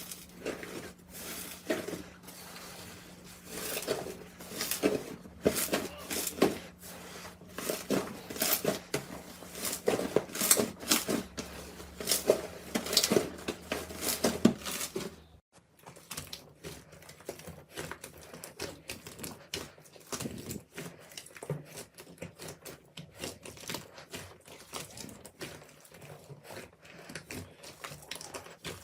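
Hands squeezing and poking slime, giving a run of sharp crackles and pops. About halfway through the sound cuts to a quieter, denser stream of small clicks.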